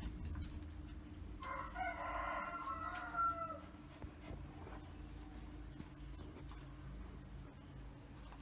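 A rooster crowing once, a single pitched call about two seconds long that starts about a second and a half in and falls at the end.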